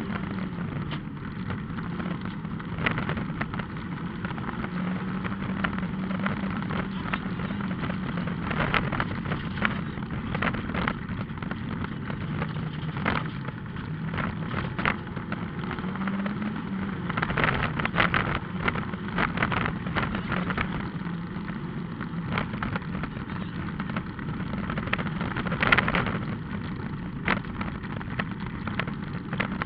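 Rally car's engine running steadily under way, its pitch rising and falling a little with the throttle, over frequent sharp knocks and rattles as the car runs over the rough gravel track; the loudest knock comes near the end.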